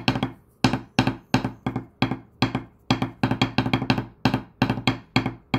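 Hickory drumsticks tapping on a wooden tabletop: an uneven run of sharp, woody knocks, about four a second, each ringing briefly.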